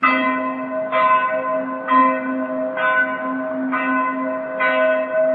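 A church bell struck about once a second, six strikes, each one ringing on under the next.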